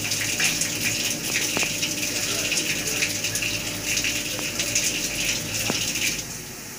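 CNC milling machine running with coolant spraying from a flexible nozzle onto the workpiece: a steady hiss of spray over the machine's steady hum, with a few sharp ticks. The spray cuts off about six seconds in.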